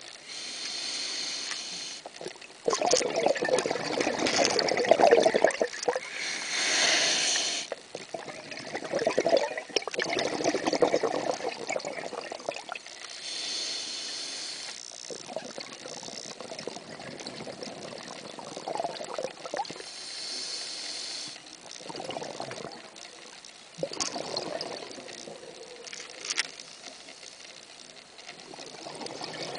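A scuba diver breathing through a regulator underwater: a hiss on each breath in and a louder rush of bubbles on each breath out, one breath every six or seven seconds.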